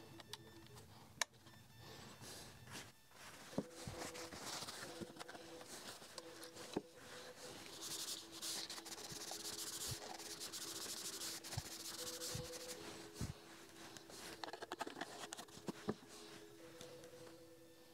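Hands rubbing and handling the cable and hose on a laser engraver's gantry, with a few light knocks and clicks. A faint steady hum comes and goes underneath.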